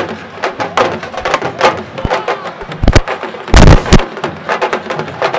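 Sabar drums played in quick, sharp, irregular strokes. About three and a half seconds in, a loud low blast of about half a second overloads the recording.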